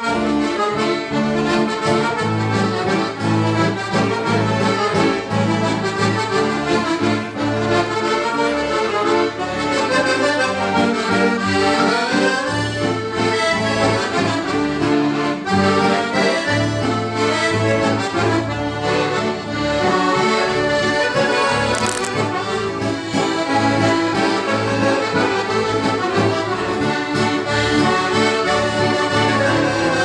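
Piano accordions, Excelsior among them, playing a lively traditional tune together with an acoustic guitar, a bass line moving underneath.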